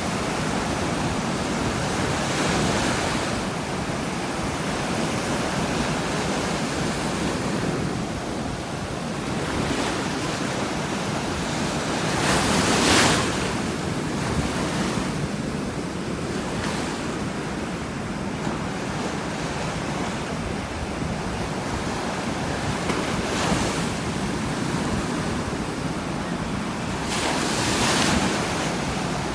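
Strong ocean surf crashing on a beach: a continuous roar of breaking waves, with the loudest crash about halfway through and another near the end, and some wind on the microphone.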